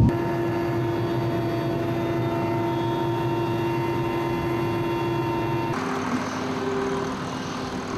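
Steady drone of aircraft engines holding several fixed pitches. About six seconds in it cuts abruptly to a fainter, lower steady hum.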